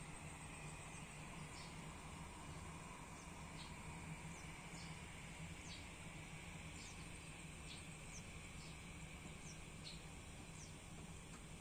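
Faint outdoor ambience: a bird gives short, high, downward-sliding chirps about once a second over a steady low hum and hiss.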